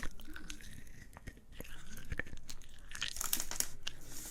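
A hard, chalky Fizzers tablet sweet being bitten and crunched in the mouth: scattered crackly crunches, thickest about three seconds in.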